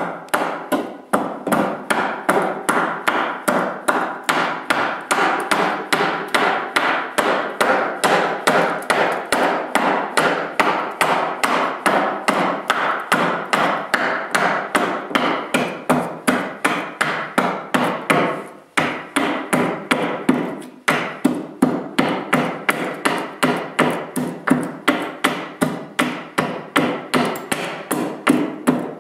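Hand axe hewing the edge of a wooden clinker boat plank on a chopping block: rapid, even chops, about three a second, with a short break about two-thirds of the way through.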